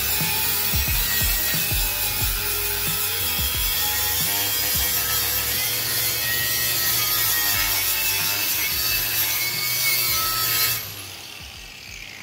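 Angle grinder with a wire cup brush scrubbing a stainless steel exhaust pipe, cleaning up the fresh TIG weld: a steady, loud scratching over the motor's hum. The brush work stops about eleven seconds in and the grinder winds down.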